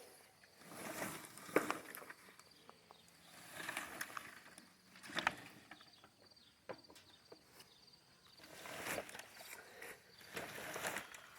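A wire-cage rabbit tractor being dragged across pasture grass in several separate pulls, with footsteps and a few sharp metal clicks.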